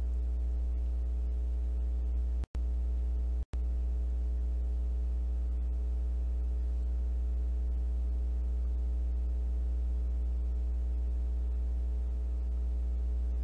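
Steady electrical mains hum with a buzzy row of overtones, picked up in the recording. It drops out completely twice, each time for an instant, about two and a half and three and a half seconds in.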